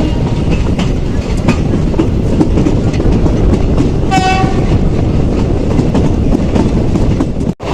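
Passenger train running on the line: a steady heavy rumble of wheels on track with clicks over the rail joints, and a short horn blast about four seconds in. The sound drops out abruptly near the end.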